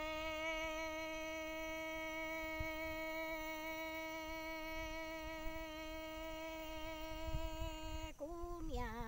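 A voice singing Hmong kwv txhiaj (sung folk poetry), holding one long steady note with a slight waver, then breaking about eight seconds in into a short wavering phrase that falls away near the end.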